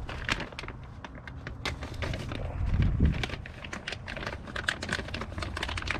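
Clear plastic hardware bag crinkling, with quick irregular clicks of the hardware inside it as gloved hands dig through it, and a dull bump about halfway through.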